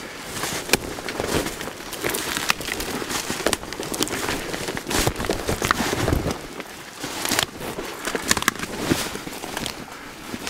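Pushing through dense spruce undergrowth on foot: branches scraping against clothing and the camera, with dry twigs and deadwood snapping underfoot in snow. Many sharp cracks sound over a constant rustle.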